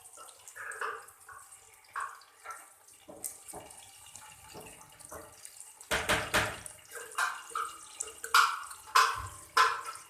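Water splashing and dripping in a kitchen vessel, in irregular short bursts with a few sharp knocks of utensils, busier and louder in the second half.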